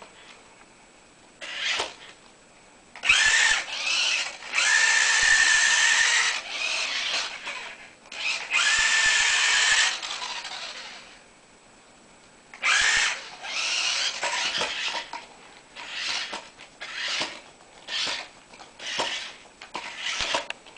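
Odyssey remote-control toy car's small electric motor and gears whirring in bursts as it drives and stops, each burst rising in pitch as the motor spins up. The longest runs come about three seconds in and about eight seconds in, followed by a string of short start-stop bursts.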